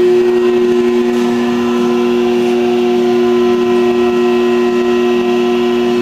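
A piece of motor-driven commercial restaurant equipment running, giving a loud, steady drone built on two strong steady tones.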